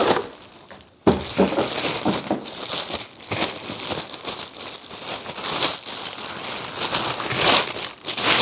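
Clear plastic packaging bag crinkling and rustling as it is worked off a plastic tray, with a short lull about a second in before the crackling starts again.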